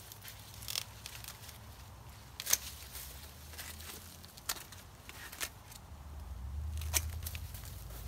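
Hand pruning shears snipping corn stalks, a handful of sharp snips with the loudest about two and a half seconds in, amid the crackle and rustle of dry corn leaves and husks being handled.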